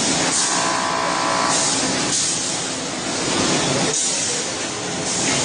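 Automatic vertical snack-packaging machines running: a dense, steady mechanical din with a sharp air hiss about once a second as the machines cycle. A brief steady whine sounds near the start.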